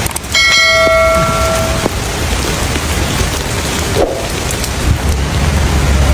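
A single bell-like chime strikes about a third of a second in and rings for about a second and a half as it fades. Underneath is a steady hiss of outdoor noise with a low rumble.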